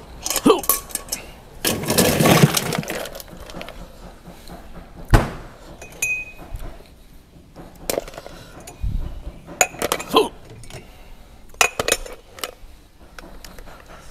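Tableware clinking and knocking on a wooden dining table, with spoons against ceramic bowls and the crinkle of a plastic bag as sticky rice is taken out. The sounds come as scattered single clicks, with a longer crinkling stretch about two seconds in and one sharp knock about five seconds in, the loudest.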